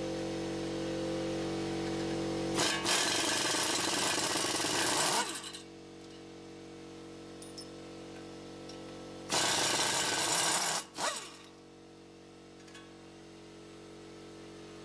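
Pneumatic air hammer with a pointed bit hammering on a Honda Accord's front hub, driving the hub and bearing assembly out of the steering knuckle. A steady buzz, with two louder, harsher stretches about three seconds and nine seconds in.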